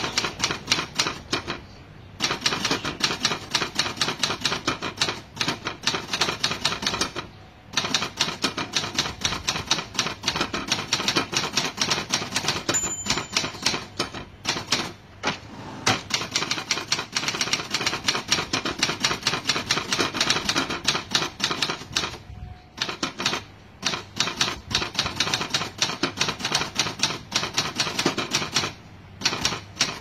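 Manual typewriter being typed on at a fast, steady pace: rapid key strikes of the typebars on the platen, broken by short pauses every several seconds, with a brief high ring about thirteen seconds in.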